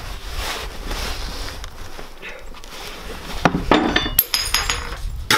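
Glass and crockery clinking and rattling as they are knocked about on an unstable shelf, with a cluster of sharp, ringing clinks about three and a half seconds in, over a low rumble of wind on the microphone.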